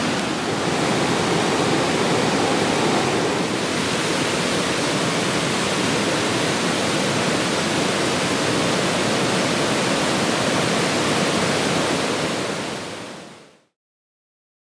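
Steady rushing of a stream running high after heavy rain. It fades out to silence a little before the end.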